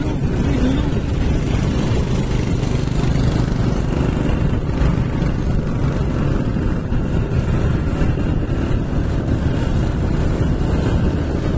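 Motorcycle engines running while riding along, under a heavy, steady rumble of wind on the microphone.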